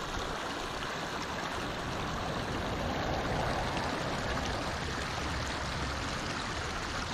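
Shallow meadow creek running over rocks: a steady rush and trickle of flowing water.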